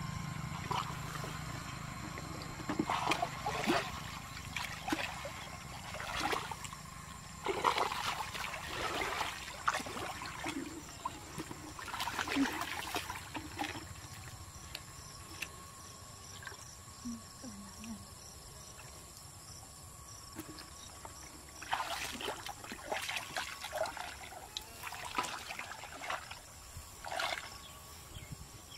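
Muddy shallow water splashing and sloshing as a person wades and gropes with her hands for fish, in irregular bursts with quieter stretches between.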